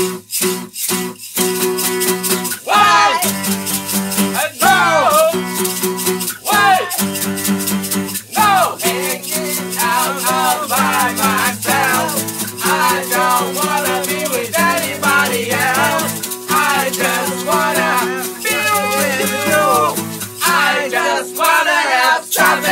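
Backing music: a song with guitar over a steady shaker-like percussion beat.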